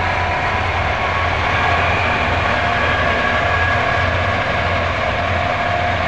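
Combine harvester running as it cuts standing wheat: a steady low engine hum with several steady whining tones from its machinery above it.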